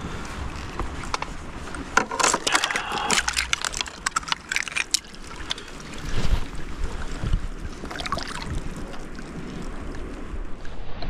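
River water splashing and sloshing in short bursts, about two seconds in and again near the five-second mark, over a steady rumble of wind on the microphone.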